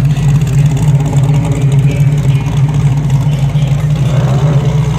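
Early-1970s Ford Mustang Mach 1's V8 idling with a loud, steady low rumble.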